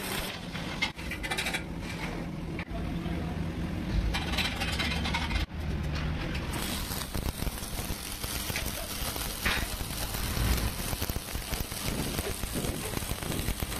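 Electric arc welding a flat-position (1G) joint in steel plate: the arc runs steadily with a few brief breaks in the first half.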